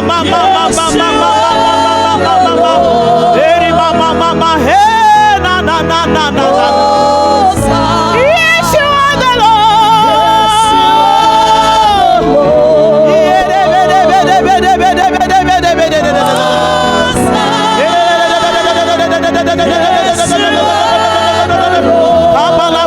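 Gospel worship music: a singing voice with wavering, long-held notes over instrumental backing.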